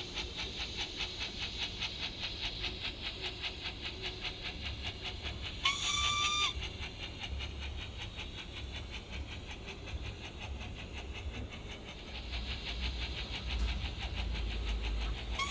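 Steam locomotive sound from a Zimo MS590 decoder with a Lion sound file, played through a Hornby OO gauge model's small speaker. Fast, even chuffing fades in the middle and builds again, with a short steady whistle about six seconds in and another starting at the very end.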